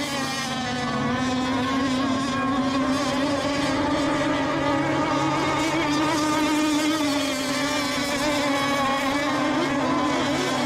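Engines of several radio-controlled racing boats running at speed during a race, making a steady pitched drone whose note wavers slightly as the boats run the course.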